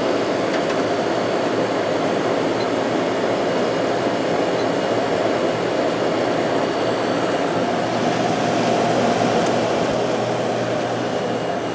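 Window air conditioner running with its fan on high: a steady rush of blown air with a low motor hum underneath.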